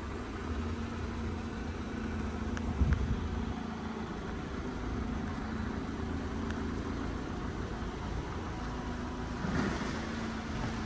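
2002 MG MGF's four-cylinder engine idling steadily, with a brief thump about three seconds in.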